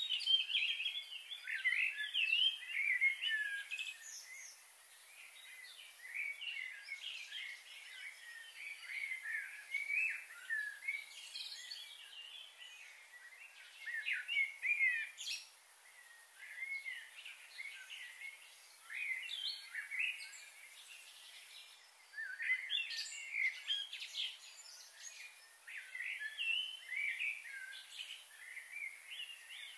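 Several small birds chirping continuously, many short, quick, rising and falling notes overlapping one another, over a faint steady hiss.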